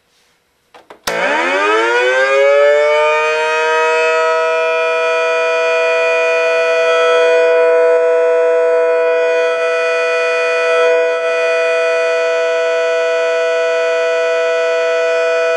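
Analog electronic dual-tone siren circuit switched on with a click about a second in: its tone sweeps quickly up in pitch, then holds a steady, loud siren note.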